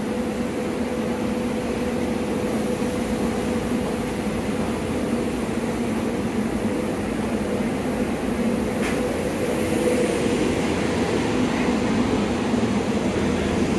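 SEPTA Silverliner IV electric multiple-unit train standing at the platform, its onboard equipment giving a steady hum. The hum grows slightly louder over the last few seconds as the train begins to move.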